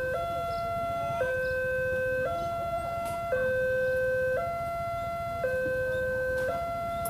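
Railway level-crossing warning alarm sounding its electronic two-tone signal, alternating high and low about once a second: the warning that a train is approaching the crossing.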